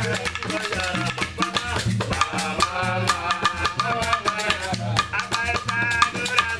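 Live Guinean music: drums and rattles keep a steady rhythm while a voice sings a bending melody over them.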